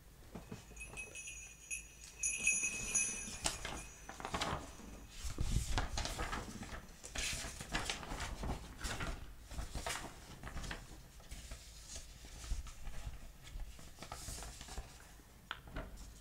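Faint scattered clicks and knocks of something being handled, with a high ringing tone lasting about two seconds near the start.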